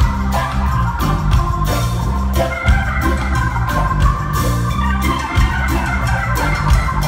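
Live reggae-rock band playing an instrumental passage without vocals: a steady beat on the drum kit, a strong bass line, electric guitar and long held chords. It is heard from inside the crowd.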